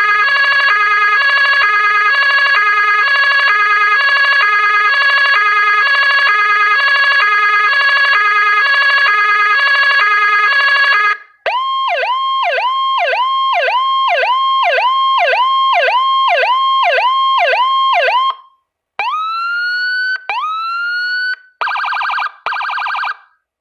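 Whelen 295HL electronic siren switching through its tones: a steady, rapidly pulsing tone for about eleven seconds, then a fast repeating rising yelp of about two to three sweeps a second, then two slow rising sweeps that cut off, and finally two short buzzing blasts near the end.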